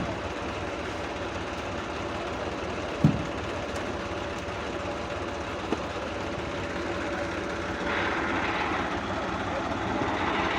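Combine harvester engine running steadily under a thin steady whine, growing a little louder after about eight seconds, with one sharp knock about three seconds in.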